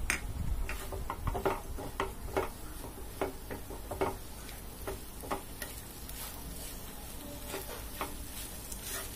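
Wooden spatula stirring and tossing macaroni in a non-stick frying pan, giving irregular light knocks and scrapes against the pan, roughly one or two a second, over a faint sizzle.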